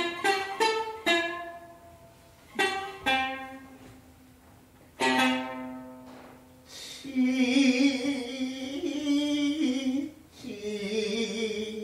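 Futozao shamisen plucking a few single notes that ring and fade. From about seven seconds in, the gidayū chanter's sung line takes over, held long with a wavering pitch.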